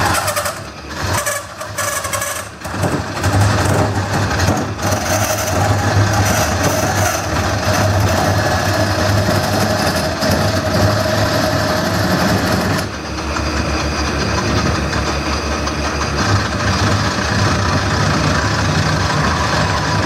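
Wood lathe running while a gouge hollows a spinning bowl: a steady motor hum under the scraping of the tool cutting the wood. The cutting breaks off briefly a few times in the first three seconds, and it softens about 13 seconds in.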